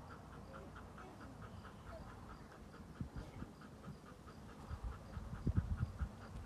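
A dog panting steadily with its mouth open, a fast even rhythm of about four or five breaths a second. There are a few soft low knocks in the second half.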